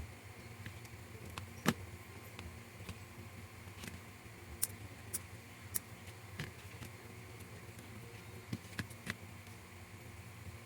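Scattered light clicks and taps of small scale-model parts being handled and fitted, over a steady low hum of room tone.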